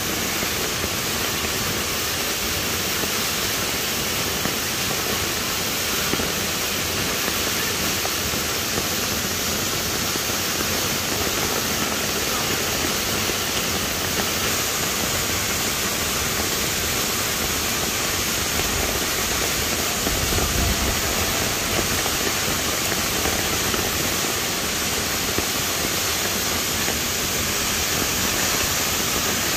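Waterfall's steady, even rush of falling water, with a brief low rumble about two-thirds of the way in.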